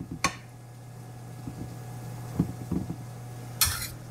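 A spoon knocking and scraping against a pan while spooning tomato sauce over chicken cutlets: a sharp click, a few soft knocks, then a short scrape about three and a half seconds in, over a steady low hum.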